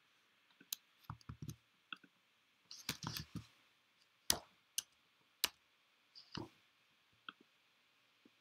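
Computer keyboard being typed on: a string of irregular, separate keystroke clicks, with a quick cluster a little before the middle.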